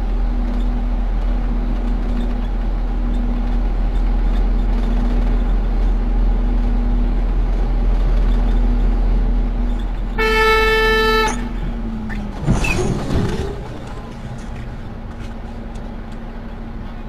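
Steady engine and road rumble inside the cab of a large truck, with a low hum, and a single horn blast lasting about a second, about ten seconds in. Soon after comes a brief sharp knock, and the rumble then drops quieter.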